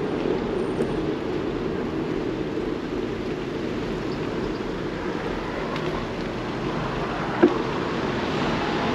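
Steady rushing noise of riding a bicycle: wind over the microphone and tyres rolling on the road. A single sharp click comes about seven and a half seconds in.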